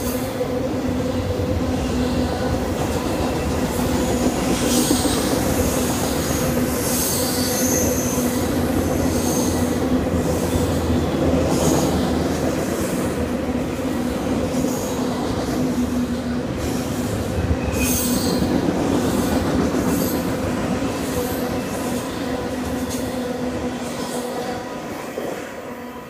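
Intermodal freight cars rolling past with a steady rumble, their wheels squealing in repeated high-pitched streaks. The sound fades near the end as the last cars go by.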